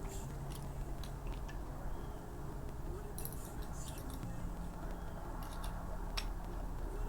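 A few light, scattered clicks and handling noises over a faint steady low hum.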